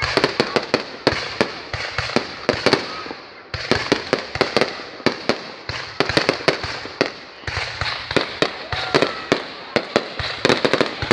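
Fireworks going off in rapid, irregular succession: sharp bangs, several a second, over continuous crackling.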